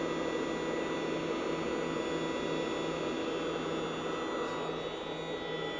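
Steady machine hum with an even hiss underneath, holding the same level throughout with no knocks or clicks.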